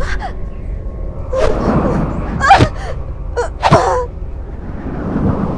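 A woman's sharp gasps and strained breaths, several in a row, each a quick rush of breath with a short catch of voice: sounds of panic and effort.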